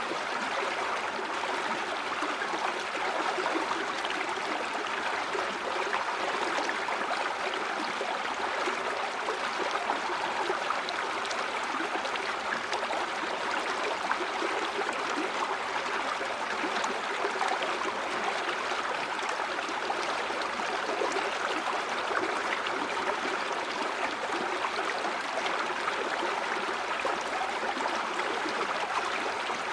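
A river or stream running steadily over stones, a continuous rushing and babbling of water with small irregular splashes.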